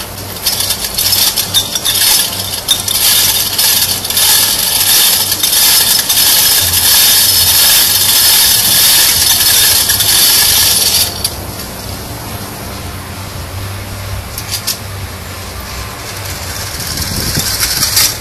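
Tin wind-up toy running: its clockwork mechanism and tin cart wheels give a dense metallic whirring rattle on a concrete floor. The rattle stops abruptly about eleven seconds in, leaving a quieter background with a few light clicks.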